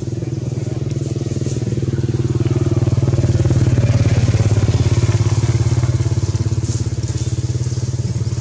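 An engine running steadily with a fast, even pulse. It grows louder toward the middle and eases off toward the end.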